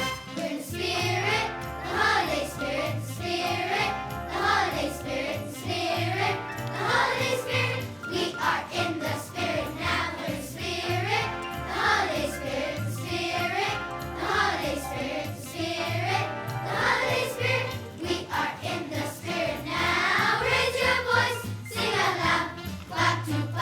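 Elementary school children's choir singing a Christmas song together over recorded accompaniment with a steady bass beat.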